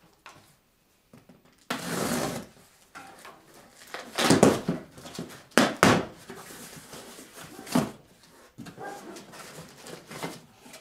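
A cardboard box being handled and moved: a series of short scraping, rustling and knocking noises, loudest about four and six seconds in.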